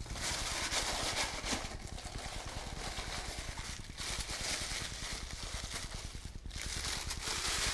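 Packing paper crinkling and rustling as a wrapped part is unwrapped by hand, in several spells with brief pauses.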